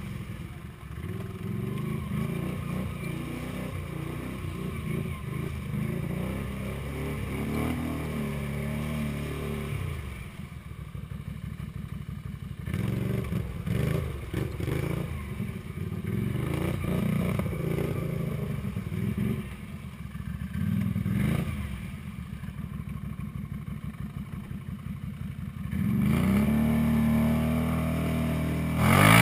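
Can-Am Renegade 500 ATV's single-cylinder engine running at varying throttle while pushing through a shallow creek. It falls to slow, separate putts about ten seconds in and again later, then revs up sharply near the end.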